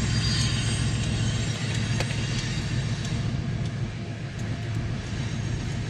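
Steady low vehicle rumble from a running engine, easing off slightly partway through, with a couple of sharp clicks.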